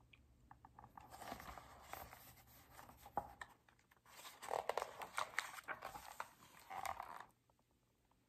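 Paper pages of a picture book rustling and crinkling as a fold-out spread is opened out, with small handling clicks; the rustling stops near the end.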